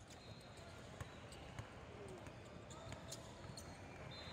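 Basketball bouncing on a gym floor a few separate times, over the steady low background noise of the gym.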